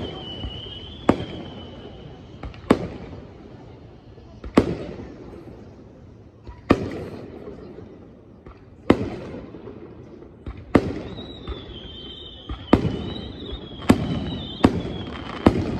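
Aerial firework shells bursting overhead: about eleven sharp bangs, one to two seconds apart, each followed by a short echoing rumble, coming faster near the end.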